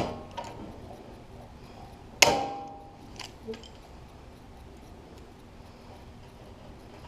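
A hand pop-rivet tool setting a rivet in a sheet-metal tool box. There is one sharp metallic snap about two seconds in as the mandrel breaks, and the thin steel rings briefly after it. A few lighter clicks of the tool and metal come before and after.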